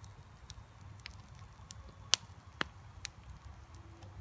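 Wood fire crackling inside an upright stove of green-wood stakes with resinous fat pine burning in the centre: scattered sharp pops, the loudest about two seconds in and another just after, over a low rumble.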